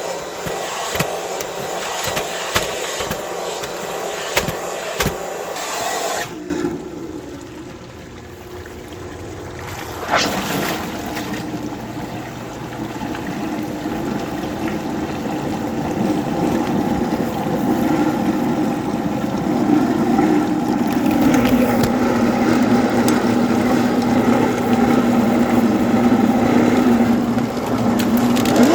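Eureka The Boss upright vacuum cleaner running, with a series of knocks and rattles over the first few seconds. It drops back briefly, then from about ten seconds in runs steadily with a hum that grows louder.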